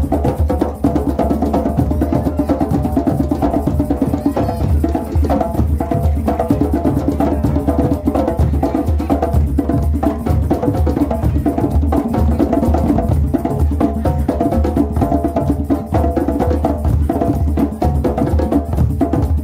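Several djembe hand drums played together in a fast, dense, unbroken rhythm at an even loudness.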